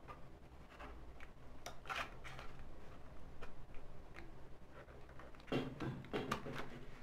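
Faint clicks and rubbing from hands fitting thin copper wire and small cardboard pieces onto a thermocol (polystyrene foam) boat hull, a little louder about five and a half seconds in.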